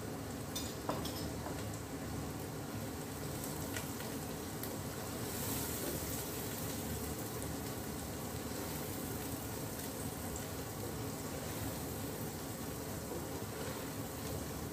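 Chopped onions frying in desi ghee in a stainless steel pot, a steady sizzle, with a wooden spatula stirring and scraping against the pot now and then.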